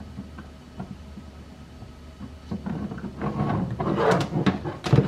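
Hard plastic trim being handled and worked loose in a car's front trunk: scattered light clicks, then a dense run of knocks, clicks and rattles from about two and a half seconds in, over a faint low hum.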